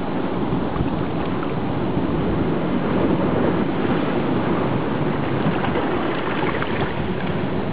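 Steady rush of moving water heard underwater, with faint fine crackling over it.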